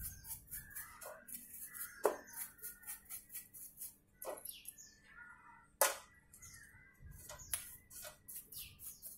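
Rapid scraping strokes of a bicycle part being scrubbed by hand in a tin of cleaning fluid, with a few sharp knocks of the part against the tin, and birds chirping in the background.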